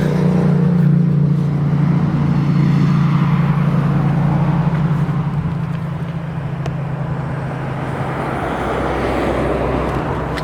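Electric window motors of a 2004 Honda CR-V running, a steady low hum as the glass is moved, changing near the end.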